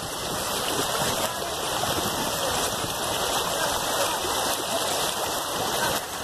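Shallow river water rushing steadily over stones and gravel.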